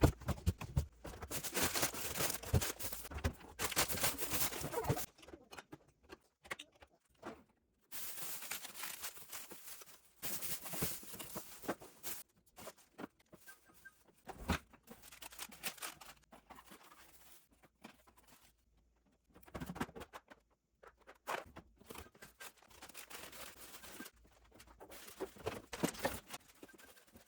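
Food containers, jars and plastic vegetable bags being taken out of a refrigerator and set down: irregular rustling and light knocks and clicks, coming in bursts with quiet gaps between.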